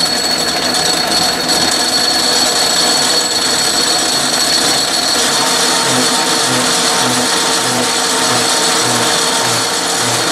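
Atlas metal lathe running under power feed, its threading tool cutting an internal thread in a steel bore, with a steady high ring. From about halfway a low pulse repeats a little under twice a second. At this depth of cut the tool is starting to chatter.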